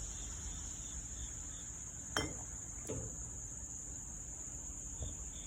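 Crickets trilling in a steady, high-pitched chorus, with a few soft clicks about two, three and five seconds in.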